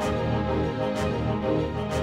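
Background music with a steady beat, a light percussive hit falling about once a second over sustained notes.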